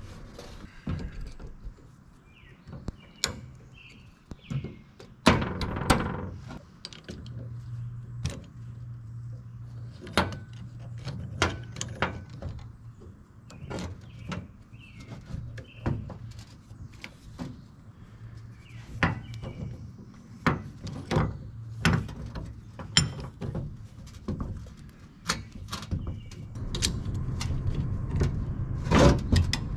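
Metal tools and parts clanking and knocking irregularly while a tractor's replacement PTO half shaft, U-joint and yoke are fitted. A low hum runs underneath, birds chirp now and then, and the low sound grows louder near the end.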